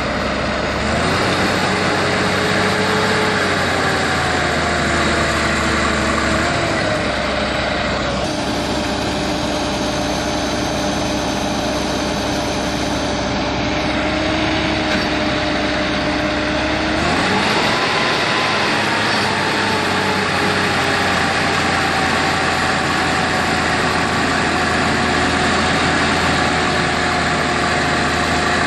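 Diesel engines of heavy machinery running steadily. The engine speed picks up about a second in and again about seventeen seconds in, then slowly eases off each time.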